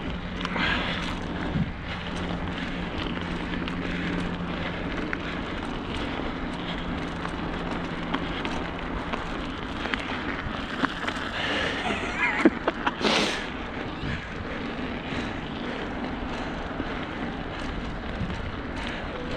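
Bicycle rolling over a rough, potholed road, with wind on the microphone. A steady low hum runs through the first half, and a cluster of sharp knocks and rattles comes about twelve to thirteen seconds in.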